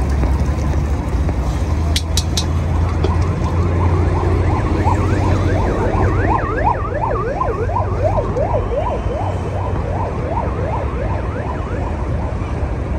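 Beaten egg sizzling in oil in a hot steel wok over a gas burner, over a steady low rumble, with a couple of sharp clinks about two seconds in. From about four seconds in, a siren wails in quick up-and-down sweeps, fading out a couple of seconds before the end.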